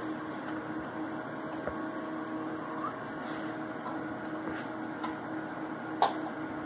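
Steady low hum, with a single sharp click about six seconds in as the graphics card is handled against the PC case and slot.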